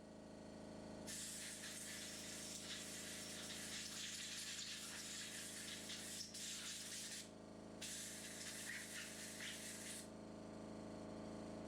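Compressed air hissing in two long blasts, the first about six seconds and the second about two, blown through a Briggs & Stratton lawn mower carburetor to clear passages gummed by fuel that sat over winter. A steady low hum runs underneath.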